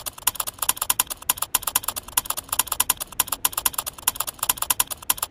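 Typing sound effect: a rapid run of keyboard key clicks, about six or seven a second, with two brief gaps, that stops suddenly near the end.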